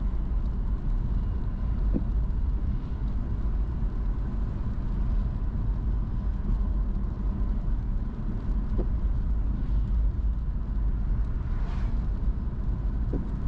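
Steady road and engine rumble of a car driving along, with a few faint clicks and a brief whoosh about twelve seconds in.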